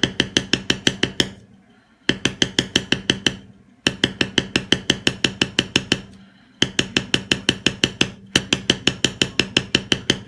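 Mallet tapping a leather stamping tool in quick runs of about seven strikes a second, stopping briefly between runs as the tool is moved along the leather.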